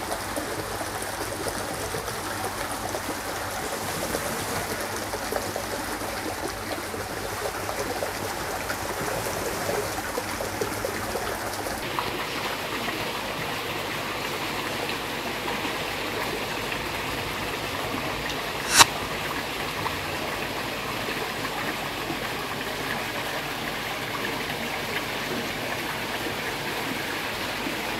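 Steady sound of running, trickling water in a koi pond, as from water pouring in and stirring the surface. Its tone shifts about twelve seconds in, and a single sharp click comes a little later.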